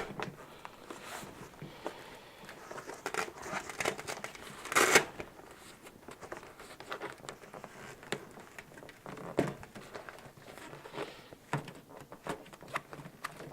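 Fabric rustling and light knocks as a padded zip-up fridge cover is shifted and adjusted on a steel fridge, with one louder rustling scrape about five seconds in.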